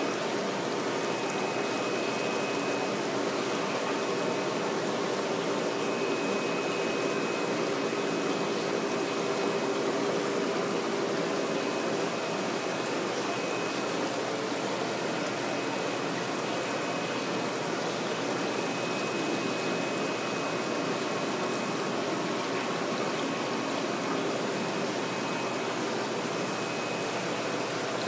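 Water running steadily from inflow pipes and splashing into fish-rearing tanks, with a faint steady hum underneath.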